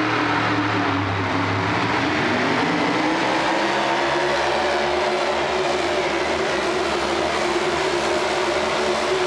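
Pulling truck's engine running at high revs under full load as it drags a weight-transfer sled, its pitch dipping and climbing again about two seconds in, with tyres spinning in the dirt.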